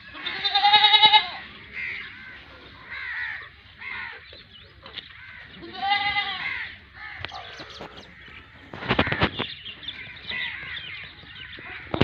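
Gulabi cross Rajanpuri goats bleating: two loud, quavering bleats, about half a second in and around six seconds in, with fainter short calls between them. A brief rustling noise comes near nine seconds.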